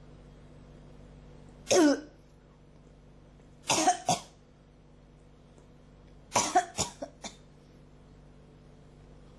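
A person coughing in three fits: a single cough about two seconds in, a quick run of three a couple of seconds later, then a run of about five coughs that grow weaker.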